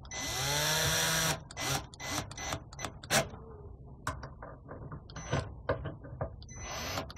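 Cordless drill-driver running a mounting screw in, its motor spinning steadily for about a second and a half. It then gives a string of short bursts and clicks as the screws are snugged down.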